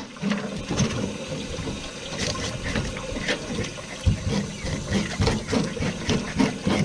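Handheld fish scaler scraping the scales off a crappie on a wet steel cleaning table: quick repeated rasping strokes, with a steady wash of running water underneath.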